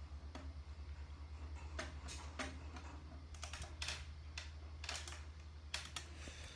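Light, irregular clicks and taps, roughly two a second, over a steady low hum.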